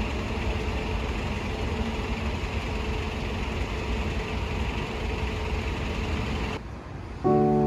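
Steady rumble and hum of a moving vehicle, cutting off about six and a half seconds in. Soft piano music starts near the end.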